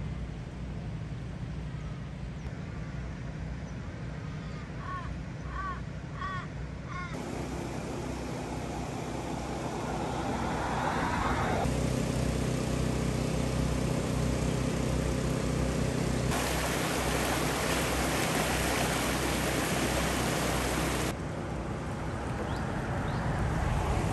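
Floodwater rushing past trees, with a steady low hum under it. There are a few short bird chirps about five to seven seconds in, and the sound changes abruptly at several edits.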